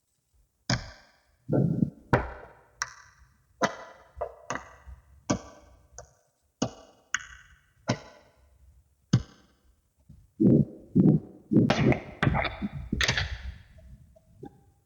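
Small magnetic balls snapping and clicking together one at a time, a sharp click about every half second to a second, then a quicker run of duller knocks near the end.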